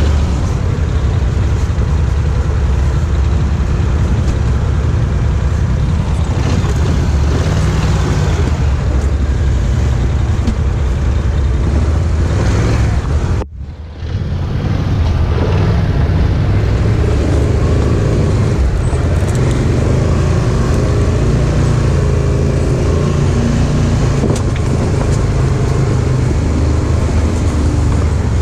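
Polaris Sportsman 1000 ATV's twin-cylinder engine running as the quad crawls over rocks and through mud. The sound cuts out briefly near the middle.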